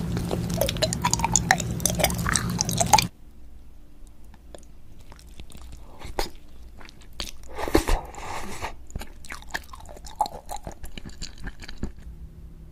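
Close-miked ASMR eating sounds. For about three seconds there is dense crunching and chewing of a bitten candy cup, which cuts off suddenly. After that come softer, sparse wet clicks and squishes of green jelly pearls being eaten, with a louder squishy burst about eight seconds in.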